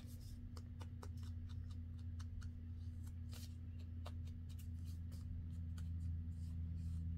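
Small foam ink applicator dabbed and rubbed along the edge of a paper tag: a run of soft, irregular papery scratches and light taps, over a steady low hum.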